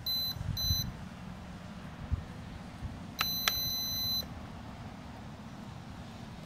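Electronic beeps: two short high beeps near the start, then one longer beep lasting about a second a little before the middle, with a couple of faint clicks, over a low steady rumble.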